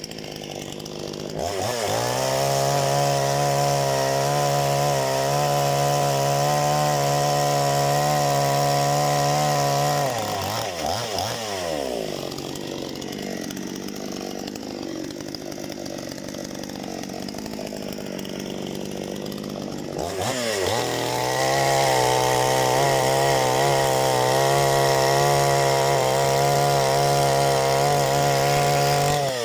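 Parma BP-058 two-stroke chainsaw revved to full throttle twice, each time for about eight seconds, dropping back to idle in between and again at the end.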